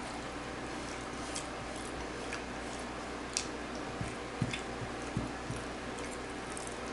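Close-up eating sounds: wet squishes, lip smacks and little clicks of a person chewing curry and rice, with a few soft low thumps a little past the middle, over a steady low room hum.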